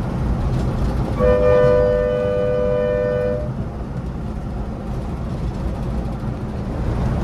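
Vehicle horn sounding two notes together for about two seconds, starting about a second in, over the steady low rumble of a bus on the move.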